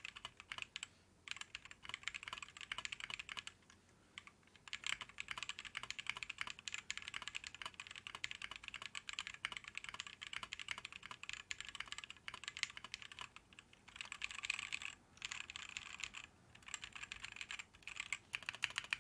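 Fast typing on a custom-built mechanical keyboard with Holy Panda tactile switches, a brass plate and pudding keycaps: a dense run of keystroke clacks, broken by a few short pauses.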